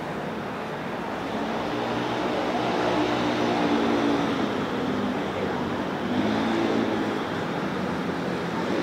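Caster board (snakeboard) wheels rolling over paving, a rough rumbling noise that grows louder toward the middle as the board comes closer.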